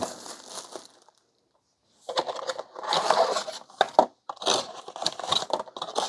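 Clear plastic shrink-wrap crinkling and tearing as it is pulled off a small cardboard product box. After a moment of dead silence about a second in, it comes back about two seconds in as a run of irregular crackles and sharp clicks.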